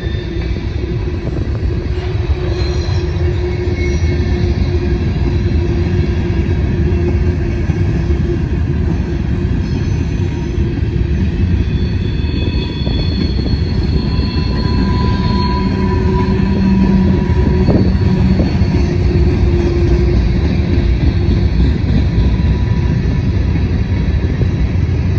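Loaded covered hopper cars of a freight train rolling past in a steady rumble of wheels on rail, with thin squealing tones that come and go.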